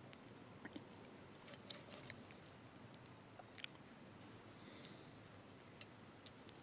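Faint campfire of burning pine logs, with a few sharp crackles and pops scattered irregularly through it.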